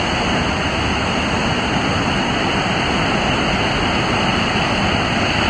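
Whitewater of Crystal Rapid on the Colorado River, a loud, steady rush of crashing waves.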